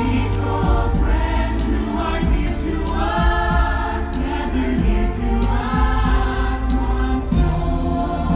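Holiday show soundtrack: a choir sings long held notes, each lasting about a second, over a heavy, steady bass line.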